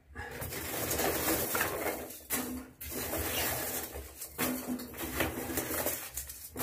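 Polystyrene packing chips and plastic containers rustling and knocking as a shipping box is unpacked by hand, with a few short low hoots in the background.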